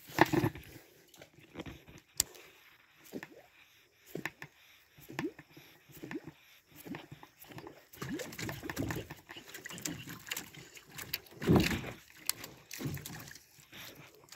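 Yara Shotgun 90 popper lure being jerked across the river surface: a string of irregularly spaced chugging splashes and gurgles, the loudest about eleven seconds in, with a few sharp clicks between them.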